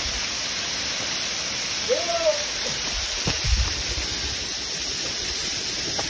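A thin, low-flow mountain waterfall spattering down over rock in sparse streams: a steady, even hiss of falling water, with a few low thumps near the middle.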